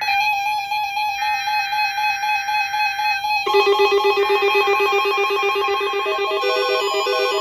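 NOAA Weather Radio required weekly test signal: bursts of buzzy SAME digital data over a steady electronic alert tone. About three and a half seconds in, the data stops and a louder multi-tone electronic alert takes over, turning to quick alternating two-note beeps near the end.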